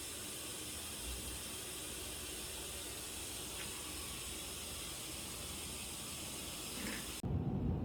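Steady, even hiss with no rhythm or pitch, cut off abruptly near the end and replaced by a lower hum.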